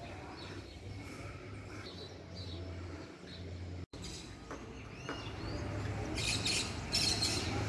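Small birds chirping over a steady street background, with a sudden brief dropout about four seconds in; near the end the background grows louder with bursts of hiss.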